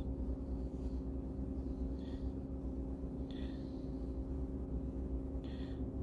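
A steady low droning hum, with three short high-pitched chirps about two, three and a half, and five and a half seconds in.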